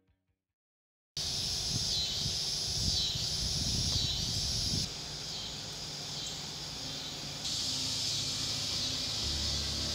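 Dusk insect chorus, a dense, steady high buzz. It starts suddenly about a second in after silence and jumps in level twice, a few seconds apart.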